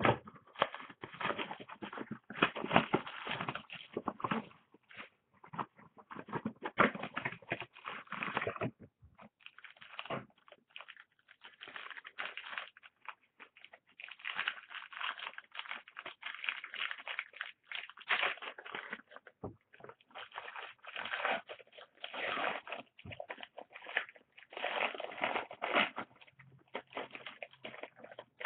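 Trading cards and plastic card holders being handled: irregular rustling, sliding and small clicks, with a few brief pauses.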